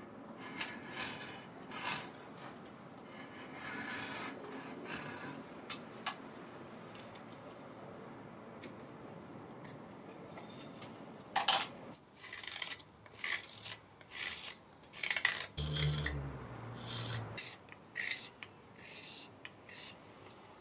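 Steel blades shaving wood off a spoon blank in repeated scraping strokes: drawknife cuts at a shaving horse, then sharper, separate slicing cuts with a carving knife.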